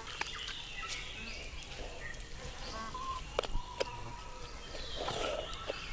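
Forest ambience of birds chirping and insects calling, with a short steady whistle about three seconds in and a few sharp clicks soon after.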